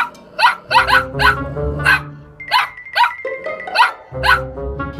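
Small dog barking in a string of short, high barks, about two a second, over light background music.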